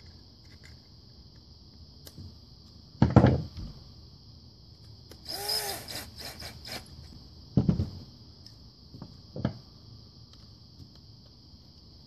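A 19.2-volt cordless drill runs briefly, about a second and a half, its motor whine rising and falling as it snugs down a terminal screw on the plug. A few dull knocks of tools being handled on the wooden workbench come before and after it.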